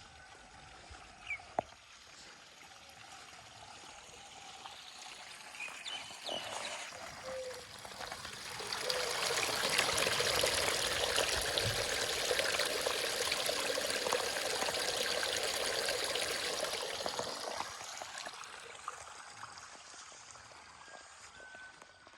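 Running water, such as rainwater pouring or trickling along a channel. It swells up for about ten seconds in the middle, then fades away again.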